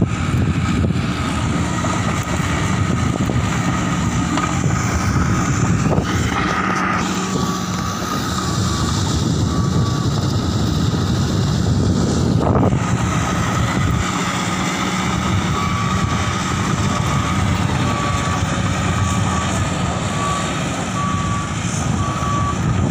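Diesel engines of heavy earthmoving machinery running steadily while trimming coal in a ship's hold, with a reversing alarm beeping regularly for a couple of seconds about a third of the way in and again through the latter part.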